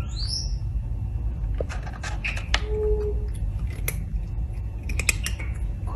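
Light clicks and scrapes of a cardboard drawer as a cat paws and noses around inside it, over a steady low rumble. A short rising squeak comes right at the start.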